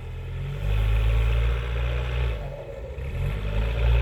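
4x4 engine revving hard in snow, easing off briefly about two and a half seconds in, then revving up again.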